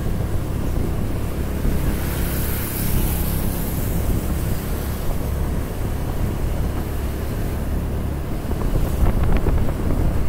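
Wind rushing over the microphone over the steady hum of a moving vehicle's engine and road noise. A few light clicks come about nine seconds in.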